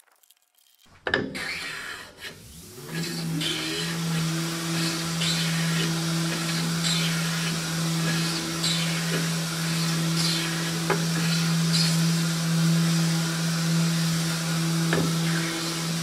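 Metal hand plane taking repeated shavings off the edge of a pecan-veneered tabletop, a stroke about every second and a half, over a steady machine hum.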